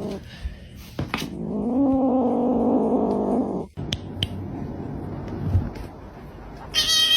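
A cat yowling: one long, low, wavering call of about two seconds, then a short, high meow near the end.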